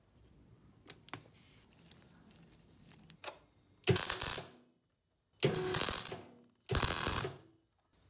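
MIG welder arc crackling in three short bursts of about a second each, laying weld onto the end of a steel lever. A few faint clicks come before the first burst.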